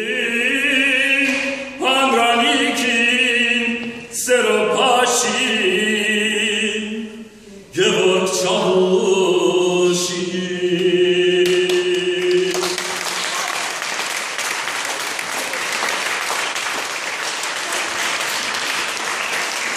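A man singing unaccompanied, long held notes with a wavering vibrato and short breaths between phrases; the song ends about two-thirds through and applause follows to the end.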